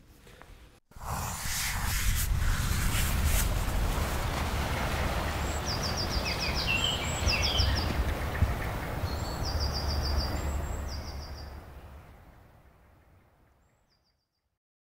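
Outdoor nature ambience: a steady rumbling background noise with a small bird singing short, fast trilled phrases several times. It starts suddenly about a second in and fades out near the end.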